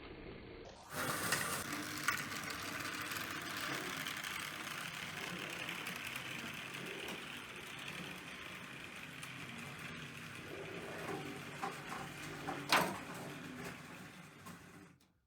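Hornby Dublo Type 1 model diesel locomotive running on two-rail track: a steady motor whir and wheel clatter that starts suddenly about a second in, with scattered clicks and one sharp click near the end, dying away just before it stops.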